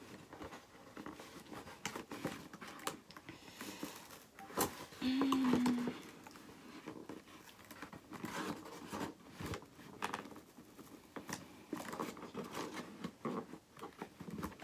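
Toy box packaging being handled and pulled at while a boxed doll is worked free: scattered clicks, rustles and crinkles. A brief low steady hum about five seconds in is the loudest moment.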